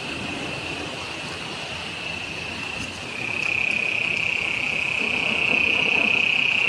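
Muddy floodwater rushing through brush after heavy rain, under a steady high-pitched chorus of calling animals that grows louder about three seconds in.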